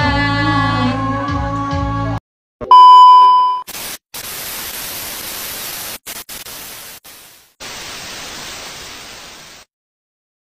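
Background music stops about two seconds in. A loud, steady test-tone beep of the kind played over TV colour bars follows for about a second. Then comes about five seconds of TV static hiss with a few brief dropouts, which cuts off to silence near the end.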